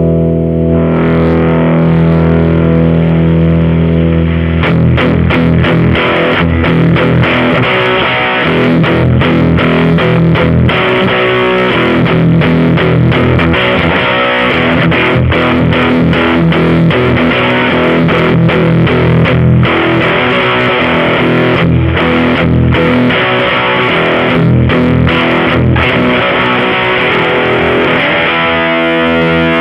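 Electric guitar played through a JOYO Deluxe Crunch pedal, with a distorted tone. A chord is left ringing, then from about four seconds in a fast, choppy riff with many short stops, and a held chord rings again near the end.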